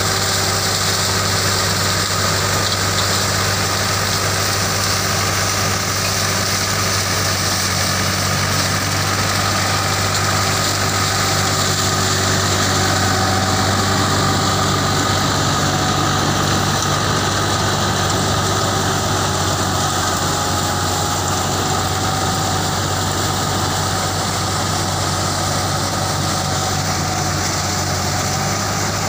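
Super 75 sugar cane harvester's engine running steadily with a constant hum while the machine cuts and feeds standing cane stalks, a steady hiss of machinery and crop sitting over the engine note.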